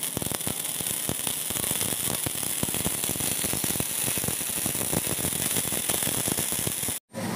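Ground fireworks crackling: a dense, continuous run of sharp pops and crackles over a steady hiss of burning sparks. It cuts off abruptly near the end.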